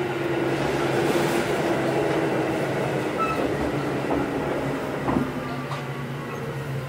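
Kintetsu 8810-series electric train running, with a steady rumble, a low hum and a motor whine falling slowly in pitch. A few wheel clicks over rail joints come about four and five seconds in.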